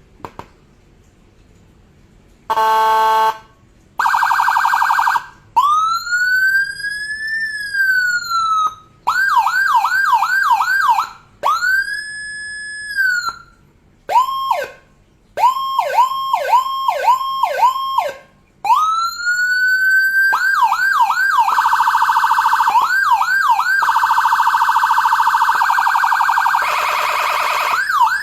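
Electronic siren module playing Whelen siren tones one after another, with short pauses between them. After a quiet start it gives a short buzzy horn blast, then a slow wail rising and falling, a fast yelp of about three sweeps a second, a rising-held-falling tone, and quicker yelps. Near the end yelps alternate with steady tones and another horn blast.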